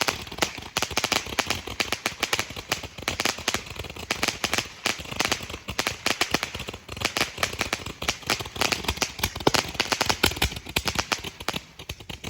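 Attack Mode 410-shot fountain and aerial hybrid firework firing: a rapid, unbroken string of sharp pops and crackles that thins out near the end.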